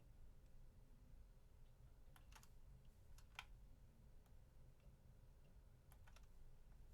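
Faint clicking of a computer keyboard in a few short clusters, about two seconds in, again just after three seconds, and near the end, over near silence.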